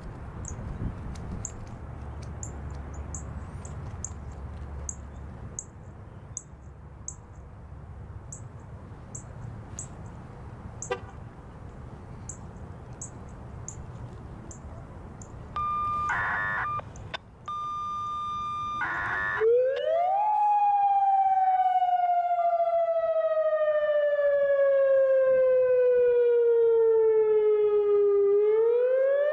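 Federal Signal Modulator electronic outdoor warning siren starting its wail test about twenty seconds in: a quick rise in pitch, then a slow fall over about eight seconds, then a rise again near the end. Before it there is steady background noise with regular high chirps, then a short steady tone.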